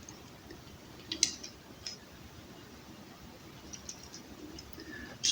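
A few faint clicks and light handling noises, the sharpest about a second in, from a replacement extension-cord plug and its wire being handled while the wire is fitted to a terminal.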